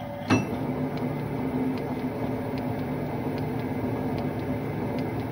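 A lathe is switched on with a sharp click about a third of a second in, then runs steadily at slow speed with a hum and faint light ticks as it turns a rifle barrel in its chuck.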